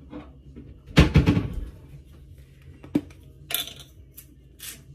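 A handheld seasoning grinder twisted by hand over a bowl, giving short scraping crunches a few times a second from about three and a half seconds in as the seasoning is ground. Before that there is a loud knock about a second in and a sharp click just before the grinding starts.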